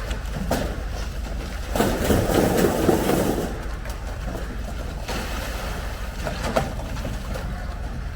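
Concrete truck engine running steadily, with a louder rushing noise for about two seconds shortly after the start.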